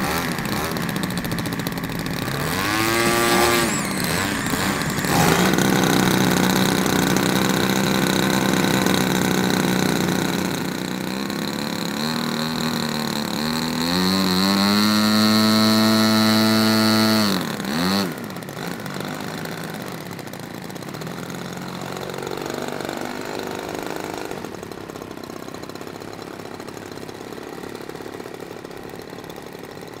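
Large-scale RC model biplane's engine running on the ground, revved briefly about three seconds in, then run up to high revs for a few seconds before being throttled back sharply, after which it is much quieter.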